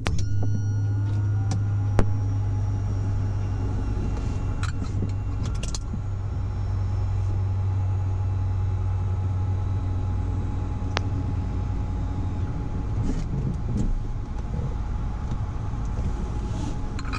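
Citation M2 cockpit electrical system and avionics powering up: a steady low hum with faint electronic whines, joined by sharp switch clicks about two seconds in and a cluster of clicks around five seconds in. The hum drops away about two thirds of the way through.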